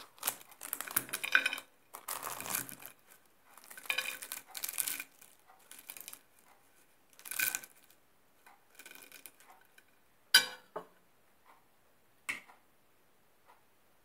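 Crisp baked filo pastry crackling and crunching as a knife cuts through a stuffed pastry parcel and it is broken open, in several bursts through the first five seconds and again after about seven seconds. Two sharp taps come later, about three and five seconds after that.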